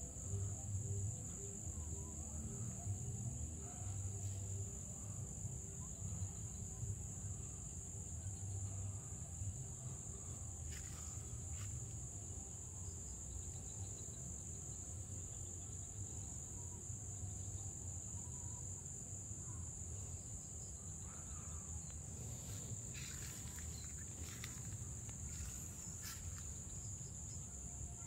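Steady high-pitched drone of insects, with a low rumble underneath and a few faint ticks in the last few seconds.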